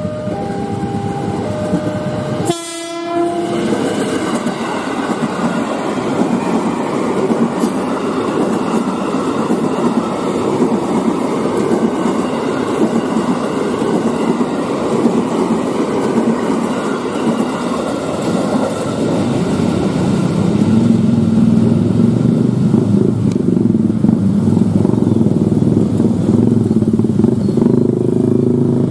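KRL Commuterline electric train sounding a short horn blast, then rumbling past at close range with its wheels clattering over the rails. A steady hum grows stronger near the end.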